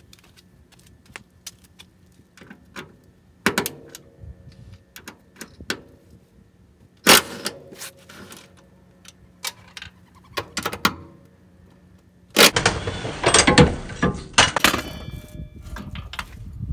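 Hand tools clinking and knocking on metal as the strut and upper control arm bolts are being undone, then a loud stretch of rapid ratchet-like clicking about twelve seconds in that lasts a couple of seconds.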